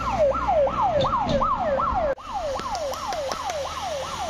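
Electronic siren from a race lead car's roof loudspeaker, a fast repeating yelp: each tone jumps up and slides down, about three a second, warning that the riders are coming. A passing car's low rumble lies under it in the first half.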